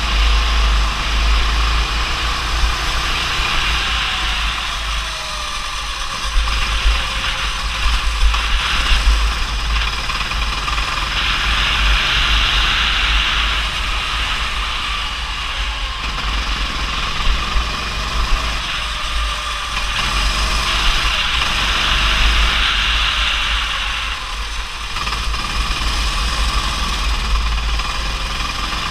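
Go-kart engine running as the kart laps, its pitch rising and falling with the throttle through the corners, over a broad hiss that swells and fades and a heavy low rumble of wind buffeting the onboard camera's microphone.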